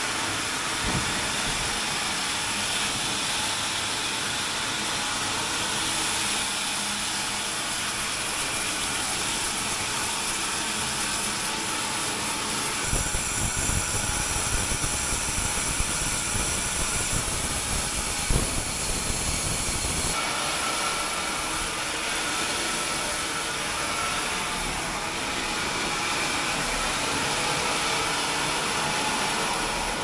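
Horse-powered sawmill machinery running: the water-cooled saw and belt-driven shafting make a steady whirring hiss. A louder, rougher stretch with a few knocks comes about halfway through.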